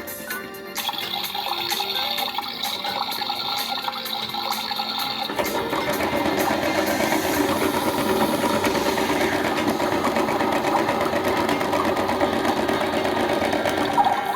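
Toy washing machine running its wash cycle: a steady whir with a high whine, changing about five seconds in to a denser rushing, water-like sound.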